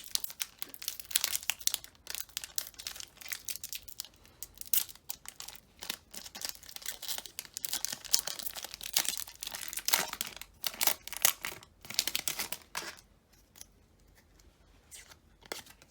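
Foil Pokémon TCG booster pack wrapper being crinkled and torn open by hand. The crinkling dies down near the end, leaving a few light clicks.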